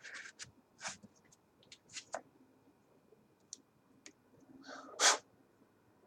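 Small steel hand tools and their plastic case being handled: scattered light clicks and knocks, with a louder clack about five seconds in.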